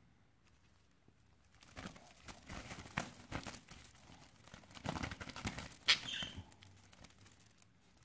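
Budgerigars fluttering and scrabbling inside a woven palm-leaf basket as they are handled, a run of rustling crackles against the weave starting about two seconds in and loudest near six seconds, with a short high squeak just after.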